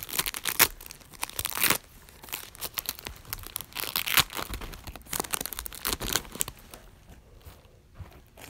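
Foil trading-card booster pack being torn open and crinkled by hand: a run of irregular rips and crackling wrapper noise, thinning out near the end.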